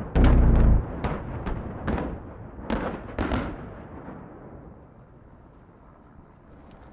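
A film-set explosion: a rapid series of detonations from high-explosive charges, the loudest and deepest blast just after the start. Several more bangs follow over the next three seconds, then a rumble fades away.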